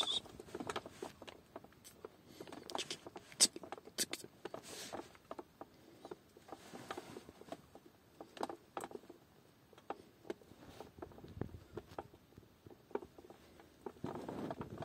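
Puppy mouthing, licking and nibbling at crumbly food held in a hand, making irregular soft wet clicks and taps, busiest a few seconds in and again about halfway.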